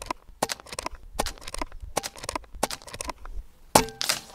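.25-calibre Air Venturi Avenger PCP air rifle firing once near the end: a sharp crack with a brief ringing tone after it. Scattered light clicks come before it.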